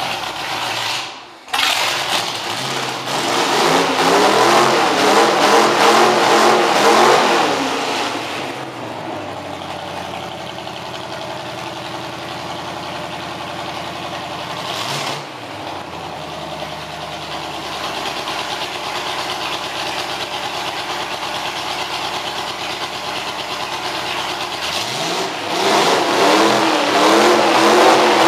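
Stock Chevy 305 small-block V8 running just after a cold winter start with no radiator or coolant hooked up. It is revved up and down for the first several seconds, then settles to a steady idle with one short blip partway, and is revved again near the end.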